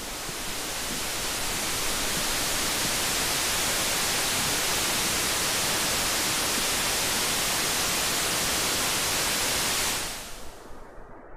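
Steady, even rushing noise of a waterfall in a gorge, with no gusts or changes; it fades in over the first second and fades out about ten seconds in.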